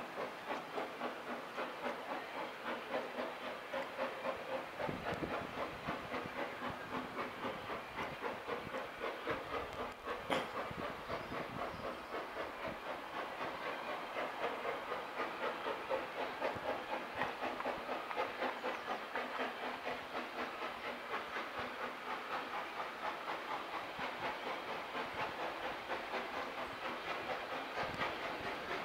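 Steam locomotive working under power, its exhaust beats coming in an even rhythm of about four a second. A single sharp click sounds about ten seconds in.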